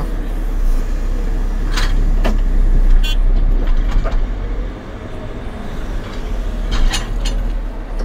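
JCB 3CX Pro backhoe loader's 4.8-litre diesel engine running under load, heard from inside the cab, as the machine drives forward and pushes its front bucket into a dirt pile. A few short knocks and a brief high beep come about two to three seconds in, and the engine grows quieter about five seconds in.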